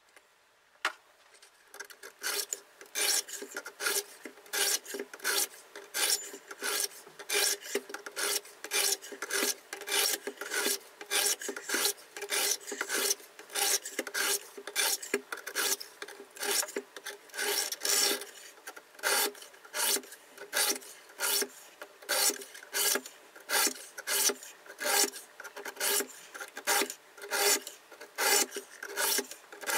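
Diamond sharpening stones of a KMFS Rival two-sided sharpener stroking along both sides of a knife blade at once. The result is a rasping scrape that repeats about twice a second, starting about two seconds in after a single click.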